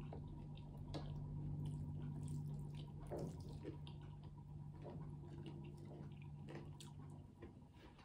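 Soft wet squishing and small clicks as rice and dal are mixed by hand on a metal plate, along with close-up chewing, over a steady low hum.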